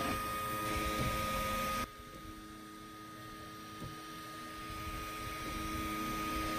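Ultimaker 3 Extended 3D printer running: a steady hum and whine of its fans and motors with a few light clicks. About two seconds in the sound drops suddenly, then slowly builds back up.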